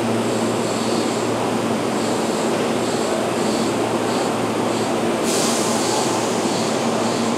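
Keihan 3000-series electric train standing at the platform, its equipment humming steadily, with faint high pips about twice a second. About five seconds in a steady hiss starts and continues.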